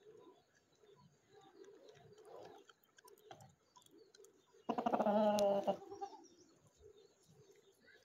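A single loud animal call lasting about a second, a little past the middle, over soft, low cooing that repeats throughout.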